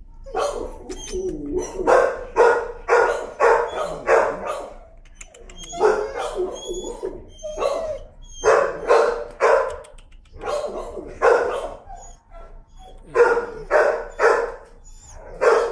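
Dog barking repeatedly, in bouts of three to five quick barks with short pauses between them.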